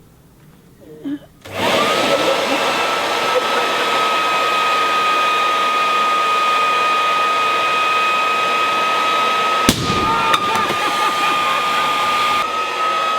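An electric air blower switches on about a second and a half in, spins up and runs steadily with a high whine over a rush of air as it inflates a balloon. There is a sharp click near the ten-second mark.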